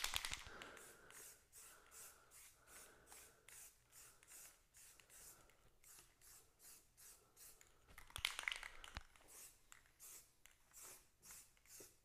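Aerosol spray can of primer hissing in quick short bursts, about two to three a second, faint overall, with louder spraying at the start and about eight seconds in.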